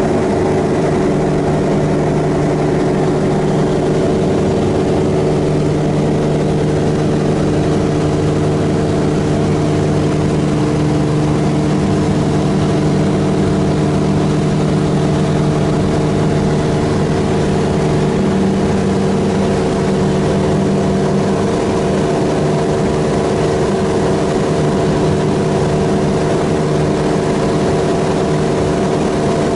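Helio Courier's geared six-cylinder Lycoming GO-480 engine and propeller running steadily in cruise flight.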